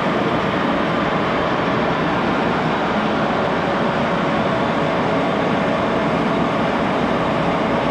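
1941 Axelson 14x30 gearhead engine lathe running steadily, turning a steel shaft under a cut.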